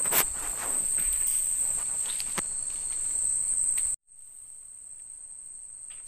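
Night insect chorus of crickets: a steady high-pitched drone, with a sharp click just after the start. It cuts out for a moment about four seconds in and comes back quieter.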